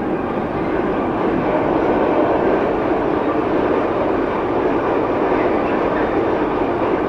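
Freight train of hopper wagons passing close by at speed: a loud, steady rush of wheels on rail that builds over the first two seconds.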